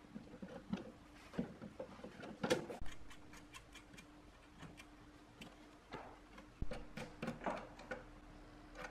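Irregular small metallic clicks and taps as pliers and fingers work the threaded terminal posts and their nuts on a metal amplifier chassis panel, over a faint steady hum.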